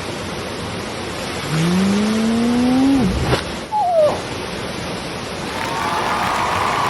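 Steady rushing of a waterfall. Over it, a drawn-out pitched sound rises from about a second and a half in and ends in a click, and a short high squeal falls away about four seconds in.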